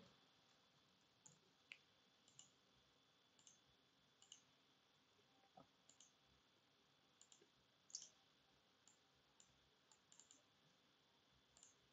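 Faint, scattered clicks of a computer mouse and keyboard, irregularly spaced and some in quick pairs, over near-silent room tone.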